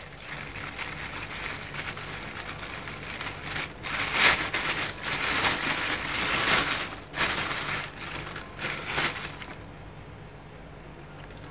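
Thin plastic bag crinkling and rustling as hands untie its knot and pull it open around peeled sugarcane sticks. The crinkling comes in loud stretches from about four seconds in, then dies down near the end as a stick is lifted out.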